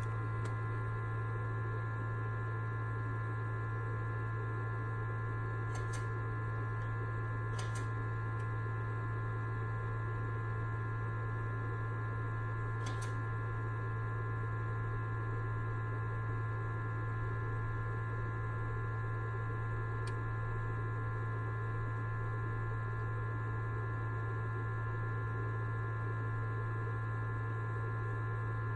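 Steady electrical hum, a low drone with a thin higher whine over it, unchanging throughout, with a few faint clicks.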